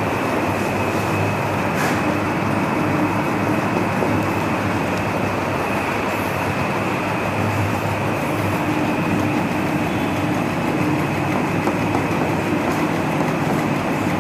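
Loud, steady rumbling noise with a low hum running through it, unchanging in level.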